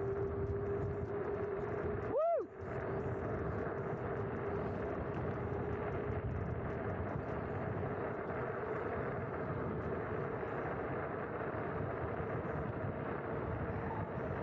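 Kugoo G Booster dual-motor electric scooter at speed under full throttle: wind rushing over the handlebar microphone with road noise and a steady motor whine that rises slightly in pitch over the first few seconds. A brief high chirp sounds about two seconds in.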